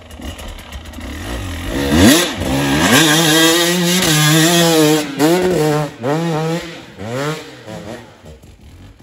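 Off-road dirt bike engine revving hard as it accelerates past, its pitch climbing about two seconds in and holding high, then several quick rise-and-fall revs before the sound fades away near the end.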